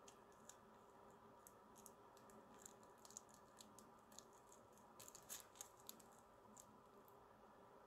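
Near silence with faint, scattered light clicks and taps, a few of them close together about five seconds in.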